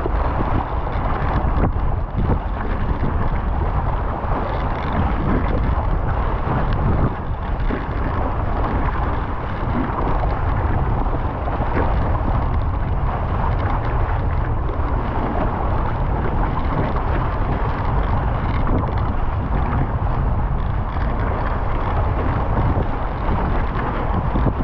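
Strong wind buffeting the microphone over the rush of water, a Hobie 16 catamaran sailing fast in a stiff breeze. The noise is steady and heaviest in the low rumble.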